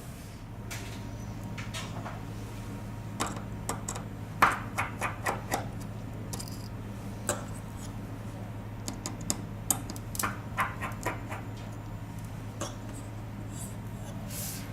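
Scattered light clicks and taps of small tools and parts handled on a hard workbench, bunched about three to five seconds in and again around ten seconds, over a steady low hum.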